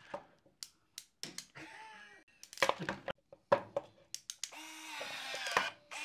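Sharp clicks and snaps of a ratchet hand crimper and of insulated terminals being handled. About four and a half seconds in, the electric motor of a battery-powered Klauke EK50ML crimping tool whirs for just over a second, dropping in pitch as it drives a crimp.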